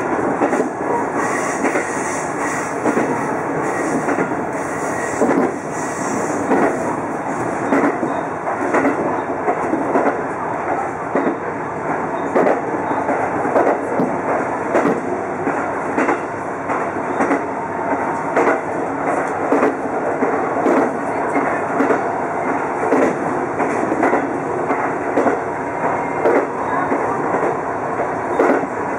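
Inside the cab of a KiHa 200 diesel railcar under way: the steady drone of its diesel engine and running gear, with the repeated clickety-clack of the wheels passing over rail joints.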